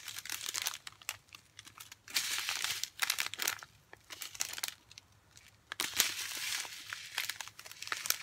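Clear plastic bags of diamond-painting drills crinkling as they are handled, in irregular bouts with a quieter pause near the middle.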